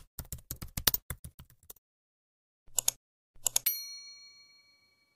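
Sound effects for an animated channel intro: a quick run of keyboard typing clicks, then a few clicks, then a bell ding that rings and fades over about two seconds.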